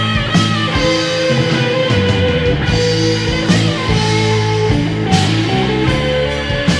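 Early-1980s NWOBHM heavy metal played from a vinyl record: electric guitar over bass and drums, with cymbal crashes every second or so.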